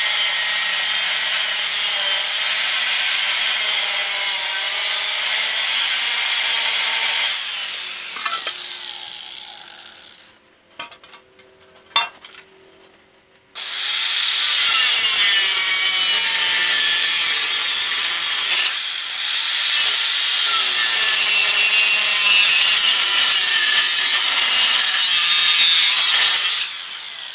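Angle grinder with a thin cut-off wheel slicing through the bell housing of an old VW transmission case, a steady, high-pitched grinding. About seven seconds in the grinder is let off and spins down; after a few quiet seconds with one knock it starts up again and cuts until just before the end.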